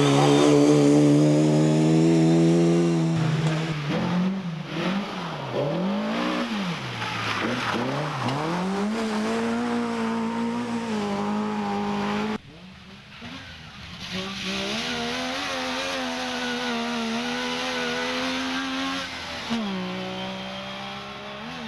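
Rally car engines under hard throttle, revs rising and dropping sharply through gear changes and lifts, with a sudden change to a quieter, different car about halfway through.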